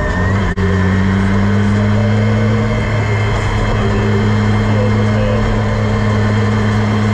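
Campagna T-Rex three-wheeler's engine running at low, steady revs as it drives slowly, heard from the open cockpit; the pitch creeps up slightly, with a momentary dropout about half a second in.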